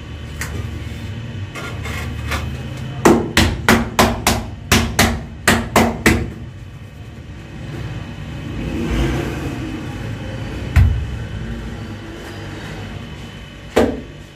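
Ceramic wall tiles being tapped into the tile adhesive: a quick run of about nine sharp knocks over three seconds, a few seconds in, and one more knock near the end, over a steady low hum.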